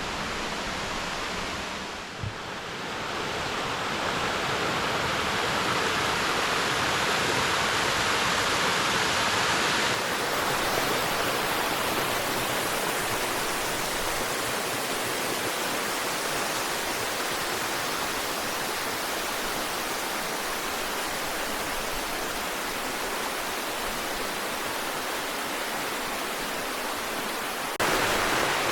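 Bearden Falls, an 80-foot waterfall, with the steady rush of water falling onto rock. Its level and tone step a few times: a dip about two seconds in, a change at about ten seconds, and a louder, fuller rush near the end.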